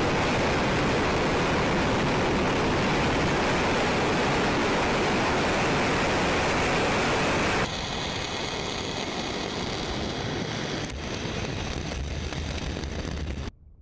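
Proton-M rocket lifting off on its six first-stage engines: a loud, steady rushing rumble of rocket exhaust with no tones in it. It steps down in level and changes character about eight seconds in, shifts again near eleven seconds, and drops away just before the end.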